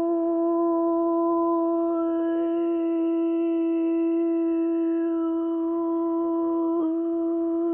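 A voice humming one long, steady note, with a short break about seven seconds in before the same note carries on.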